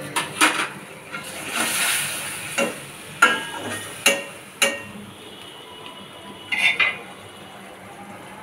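A metal spatula and fork stirring and scraping masala paste in a stainless steel karahi, with sharp clinks of metal on the pan over the first five seconds and a brief clatter later on. A faint sizzle of the paste frying in oil runs underneath.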